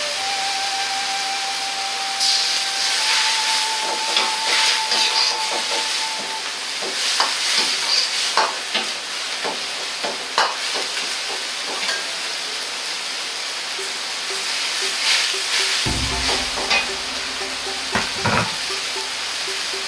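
Glass noodles, cabbage and broth bubbling and sizzling in a carbon-steel wok over a high gas flame, with a steady hiss. A metal wok ladle clicks and scrapes against the wok again and again as the noodles are stirred, and there are low thumps near the end.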